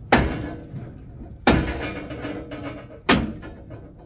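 Cast-iron drain pipe being smashed apart: three sharp heavy strikes about a second and a half apart, each followed by a short ringing decay.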